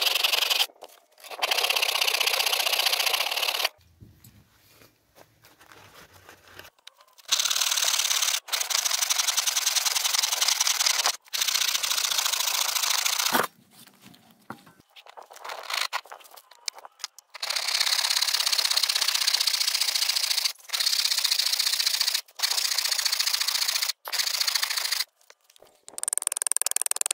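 Hand saw cutting through a wooden axe-handle blank in steady back-and-forth strokes. The sawing comes in several long stretches separated by abrupt breaks.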